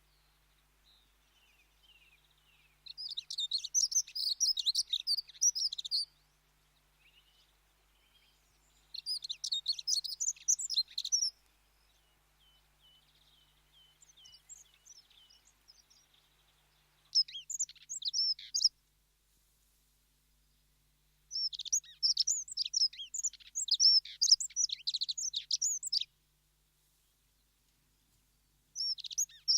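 Dunnock singing: bursts of rapid, high, jumbled warbling a couple of seconds long, repeated five times with short pauses, the fourth burst longer than the rest. Fainter, thinner chirps fill some of the gaps.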